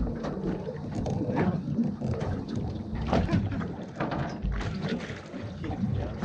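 Sounds aboard a small boat at sea: water slapping against the hull and wind, with scattered knocks and clatters on deck.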